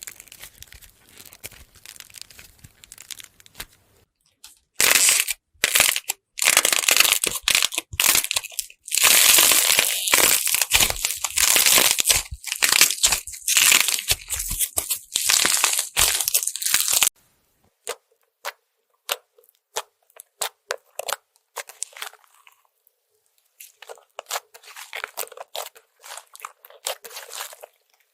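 Slime being squeezed, pressed and pulled apart by hand, giving dense runs of sharp clicks and crackles. The loudest run starts about five seconds in and stops abruptly past the middle; after a near-silent pause a softer run follows near the end.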